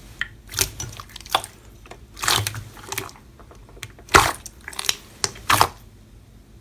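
Slime being squeezed and pressed by hand, giving irregular crunchy crackles and pops, the loudest a little over four seconds in.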